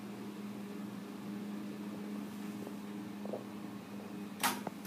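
Steady low hum inside an elevator car, with a brief scraping noise near the end.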